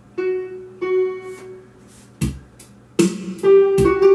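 Yamaha YPG-235 keyboard on its MIDI Grand piano voice: two single notes of about the same pitch struck near the start and left to ring. About two seconds in a drum hit sounds, and a second later the keyboard's backing starts up with steady drum strikes under sustained chords.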